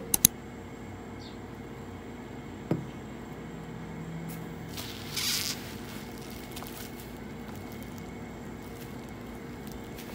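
Quiet room tone with a few faint handling noises on a desk: a couple of clicks at the very start, a single knock under 3 seconds in, and a short rustle about halfway through.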